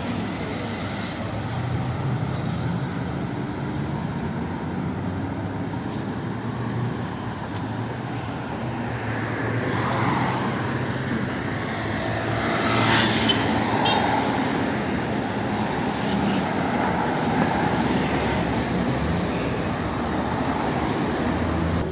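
City road traffic: a steady mix of car engines and tyres on the road, swelling as a vehicle passes close by about twelve to fourteen seconds in.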